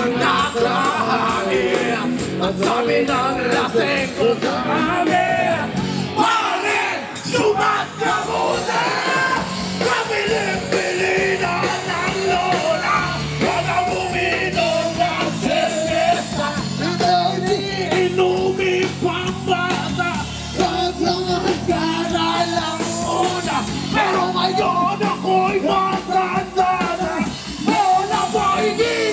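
Live rock band playing, with electric guitars and drums, and men singing into microphones.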